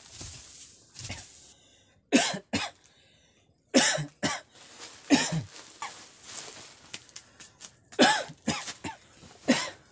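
A man coughing hard in about five separate fits, choking on the dust of the dry straw chaff he has been scooping. Faint rustling of the chaff comes in the first second or so.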